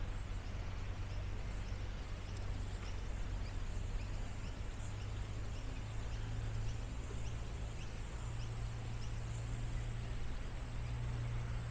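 City park ambience: a steady low rumble and hiss with faint, scattered bird chirps.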